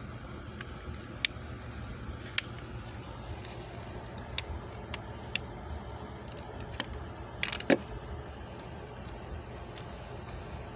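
Scattered plastic clicks and rattles from a Transformers action figure being handled and its parts moved, with a louder short clatter about three-quarters of the way through. A faint steady low hum runs underneath.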